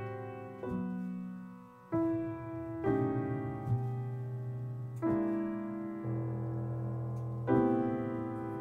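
Acoustic piano playing slow, full chords, a new chord struck every one to two seconds and left to ring.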